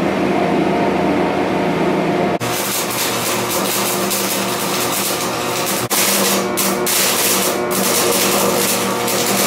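Electric welder humming; about two and a half seconds in the arc is struck and crackles and hisses steadily as the exhaust pipe extension for a riding lawn mower is welded, with a brief break partway through.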